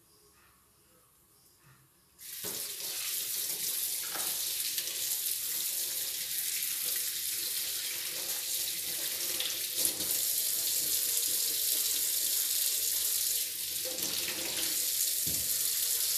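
Kitchen tap turned on about two seconds in, then water running steadily into a stainless steel sink as hands rinse a chayote under the stream.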